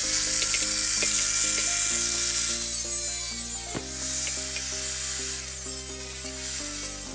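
Background music with a loud, steady hiss of abrasive work on metal, such as sanding or blasting the old chrome off moped parts. The hiss cuts in suddenly at the start.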